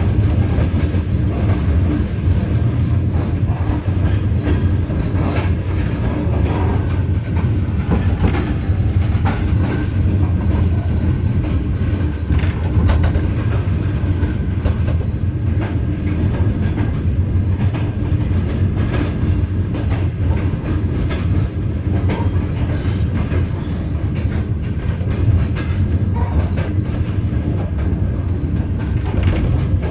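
Passenger train running along the track, heard from aboard: a steady low rumble of the moving coaches with wheels clicking over the rail joints throughout.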